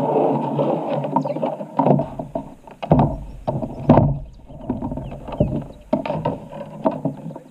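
Handling noise on a plastic fishing kayak while a freshly caught smallmouth bass is held: a run of sharp knocks and thumps on the hull and gear, over a steady rustling.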